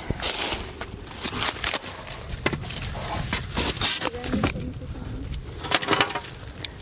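Irregular crunching, crackling and scraping of footsteps and handled debris in a ruined house.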